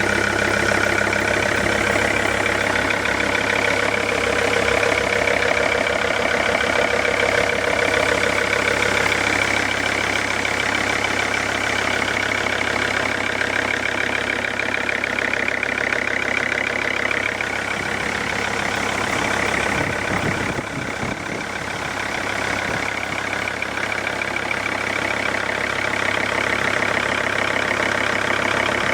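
Mercedes-Benz W211 E-Class engine running steadily at idle with a knock, the fault the owner is recording.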